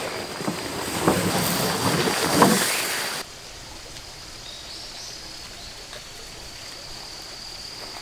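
Nylon fabric of a Decathlon 2 Seconds Easy blackout pop-up tent rustling and swishing as it is handled, for about three seconds. Then it cuts off suddenly to quiet outdoor background with a faint steady high whine.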